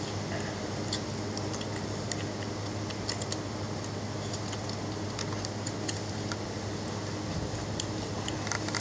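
A litter of Belgian Malinois puppies suckling at their mother, making soft irregular clicking and smacking sounds over a steady low hum.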